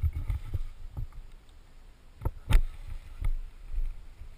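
Scattered sharp knocks and scuffs close to the helmet camera's microphone, with the loudest pair about two and a half seconds in, from a person shifting on rock in a wingsuit. A low wind rumble on the microphone runs underneath.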